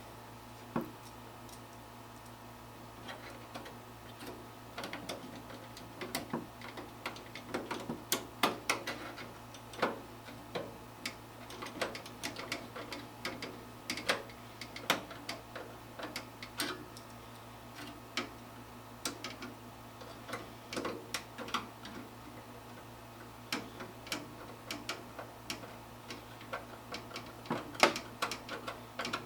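Irregular small clicks and ticks of a screwdriver and hands working inside a metal PC case, screwing a graphics card's bracket back down and handling parts, over a steady low hum.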